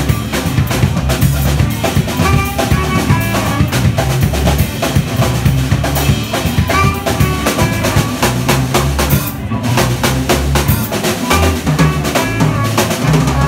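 Live band playing: a drum kit keeping a steady beat with an electric guitar and a low bass line, loud and continuous.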